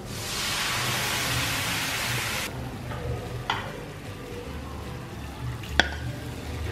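Hot frying pan of sautéed onions and curry paste sizzling loudly as coconut milk is poured in. The hiss stops abruptly after about two and a half seconds, leaving a quieter simmer with a couple of light clicks and one sharp click near the end.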